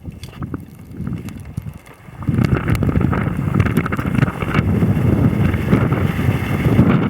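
Wind buffeting the microphone outdoors, a low rumble that jumps much louder about two seconds in and stays strong, with scattered small clicks.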